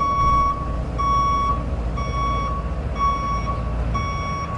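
Truck's reversing alarm beeping five times, about once a second, each beep about half a second long, over a low engine rumble.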